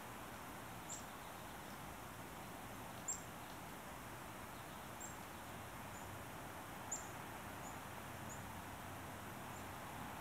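A small songbird giving short, sharp, very high chip notes, about eight of them spaced irregularly a second or so apart, over a steady background hiss.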